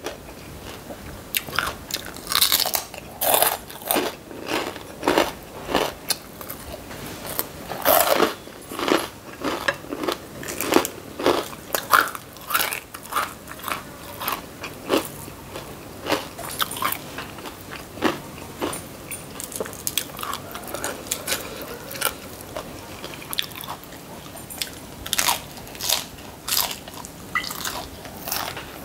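Crisp fried pork cracklings bitten and chewed close to the microphone: a steady run of sharp, separate crunches, about one to two a second.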